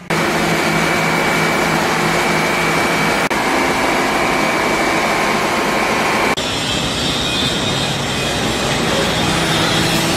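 Detroit Diesel 3-53 generator engines running in a fireboat's engine room: a loud, steady machinery drone with a constant high whine. The whine drops out about two thirds of the way through, where the sound shifts.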